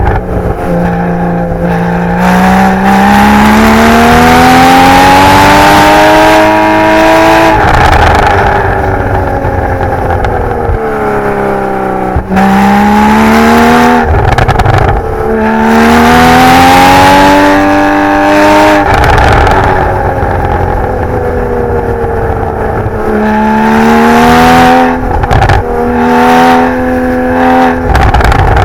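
Porsche 981 Boxster GTS's naturally aspirated flat-six running through its stock sport exhaust, revving hard through the gears. Its pitch climbs in repeated pulls, several times breaking off and falling as the car lifts off and slows, then climbing again.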